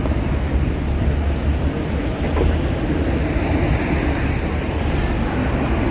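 Steady city background noise, a continuous low rumble with hiss above it and no distinct events.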